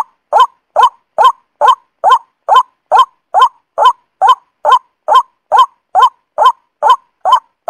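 Looped bird-lure recording of the 'truok sawah' paddy-field bird call: the same short, honking note repeated evenly about two and a half times a second.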